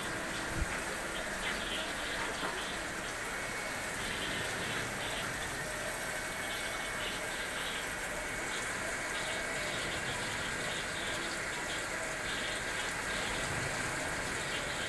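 Steady rush of running water from marine aquarium tanks, the kind made by their filtration and water circulation, with a single brief knock about half a second in.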